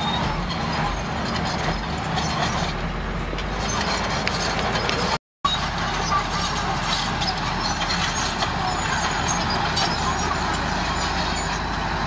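Komatsu D31A crawler dozer's diesel engine running steadily under load while it pushes rock fill, with the tracks clanking and rocks grinding and scraping under the blade. The sound drops out for a split second about five seconds in.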